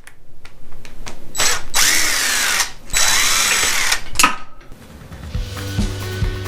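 Cordless drill/driver run in two bursts of about a second each, its motor whine rising and falling in pitch as it backs out fasteners. A couple of short knocks follow, and background music with a steady beat starts near the end.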